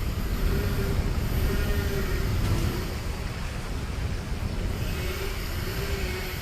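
Steady rumble of rushing water and wind buffeting the microphone on a river rapids raft ride, with a faint tone wavering up and down beneath it.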